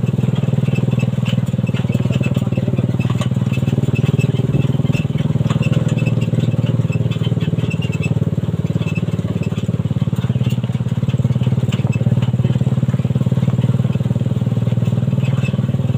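Suzuki Satria FU 150cc single-cylinder four-stroke motorcycle engine powering a homemade buggy, running at a steady, even pitch with scattered light rattles and clicks.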